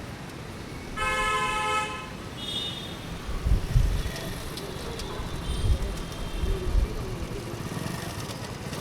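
Light street traffic: a car horn honks once for about a second, a brief higher-pitched toot follows, then vehicles rumble past over a steady traffic hum.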